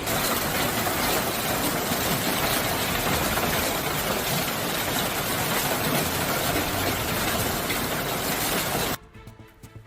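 Hail pelting down hard as a dense, loud, steady clatter of countless impacts, which cuts off suddenly near the end.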